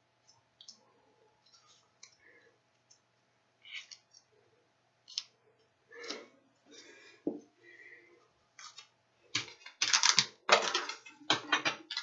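Scattered soft clicks and rustles of gloved hands handling skin and plastic medical supplies, getting louder and busier in the last few seconds.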